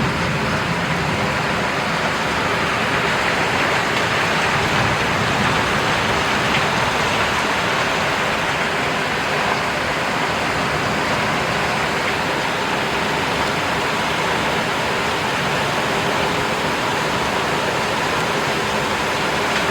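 Heavy rain pouring down in a thunderstorm, a loud, steady hiss that does not let up.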